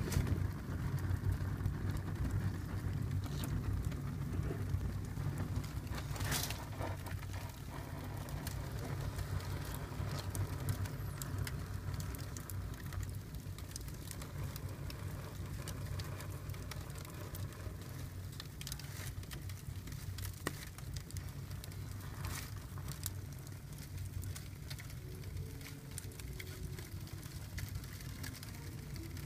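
Cardboard burning in a fireplace: a steady hiss and crackle of flames over a low rumble, with a few sharper pops scattered through.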